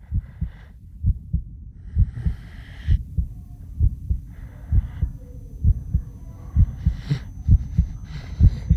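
Slow heartbeat, low thumps in pairs repeating a little under once a second, with soft breathy hiss at times and a faint steady high tone entering a few seconds in.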